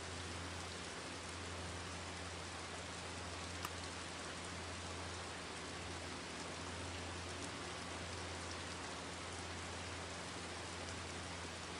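Steady, even rain-like hiss with a low hum beneath it, and one faint tick about three and a half seconds in.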